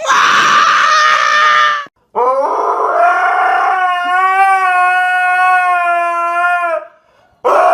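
Dog howling in three long, loud howls. The middle one slides up and then holds a steady pitch for several seconds.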